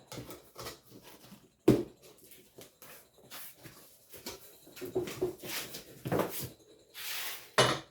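Packaging being handled while a generator is unboxed: scattered rustles and scrapes, a sharp knock about two seconds in, a brief hissing slide near the end and a final knock.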